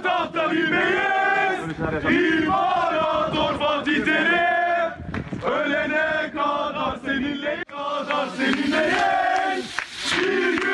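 A crowd of Galatasaray football supporters chanting together, many male voices holding the notes of a terrace chant in phrases with short breaks between them.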